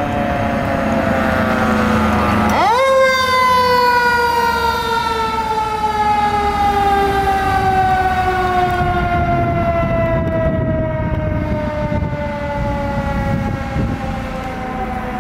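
Fire truck's mechanical siren winding down, spun back up sharply about three seconds in, then left to fall slowly in pitch for the rest of the time. Underneath it is the low rumble of the ladder truck's engine and tyres as it passes.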